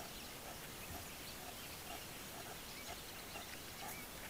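Faint bush ambience: a steady hiss with scattered short bird chirps.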